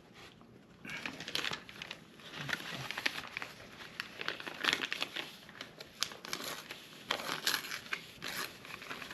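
Crinkling and crackling of a sticky cover sheet and its backing being peeled back and handled, in irregular rustles.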